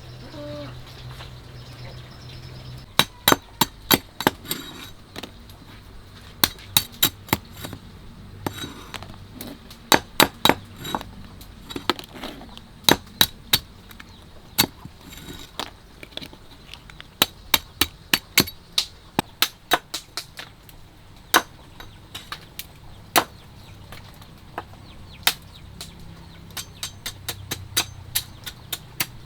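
Knife chopping on a cutting board: runs of quick, sharp strikes, several a second, broken by short pauses.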